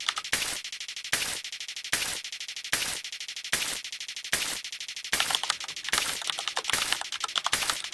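Rapid run of synthetic clicking sound effects, one for each number the counter steps through, with a louder noisy burst about every 0.8 seconds.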